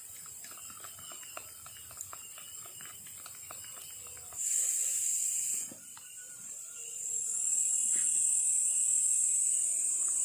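Night insects in tropical forest buzzing in a steady high-pitched chorus. One loud buzz starts about four seconds in and lasts just over a second, and another swells up a little after seven seconds and holds. Light clicks and knocks sound during the first few seconds.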